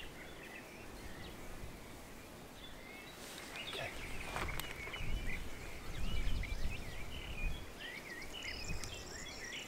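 Small birds chirping repeatedly in the background, with a low rumble and scuffing from about five seconds in as a person stands and steps across dry, sandy ground.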